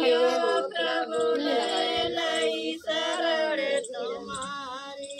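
Several women singing a traditional wedding folk song together without instruments, in long held notes; the singing goes quieter in the last second or so.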